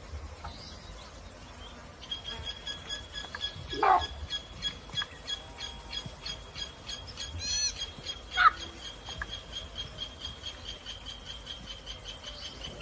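Wild animal calls outdoors: a high, thin note repeated evenly several times a second, with a few louder calls over it. The loudest is a sharp call falling steeply in pitch about four seconds in, and a shorter call comes about four seconds later.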